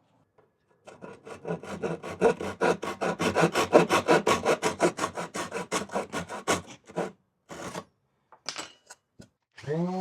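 Quick, even back-and-forth rasping strokes on wood, about seven a second for roughly six seconds, like hand sanding or a fine hand saw worked on the board, followed by a few short scattered knocks. A droning music bed comes in just before the end.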